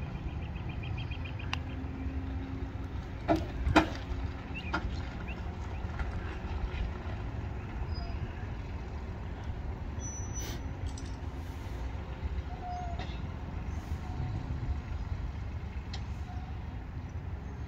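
SUV towing a boat on a trailer rolling slowly past, with a steady low engine rumble and two sharp knocks about three and a half seconds in.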